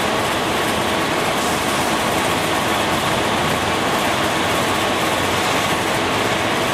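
Steady, loud running noise of heavy machinery, even throughout, with a faint steady whine.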